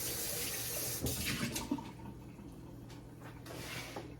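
Tea poured from a jug into a cup: a splashing stream of liquid, strongest in the first second, then running on more faintly until it stops about three and a half seconds in.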